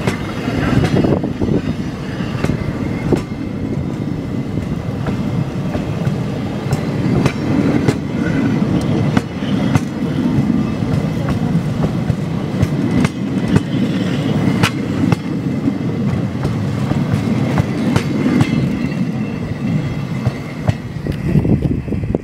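Passenger train coaches rolling past close by: a steady rumble of wheels on rails, with scattered clicks and knocks as the wheels cross rail joints.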